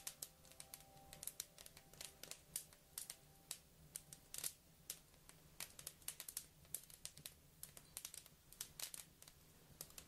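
Faint, irregular crackling: sharp clicks several times a second. Quiet held music notes fade out about four seconds in.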